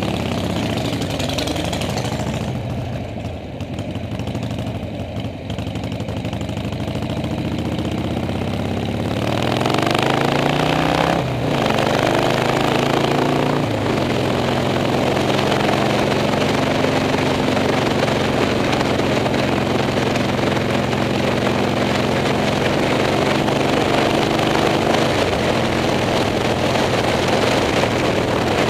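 Motorcycle engine heard from the bike itself: idling for several seconds, then about nine seconds in it revs up and pulls away, shifting up twice, and settles into a steady cruise with wind rushing over the microphone.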